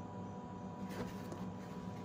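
Light handling of a cardboard box, with one faint tap about a second in, over a steady low electrical hum.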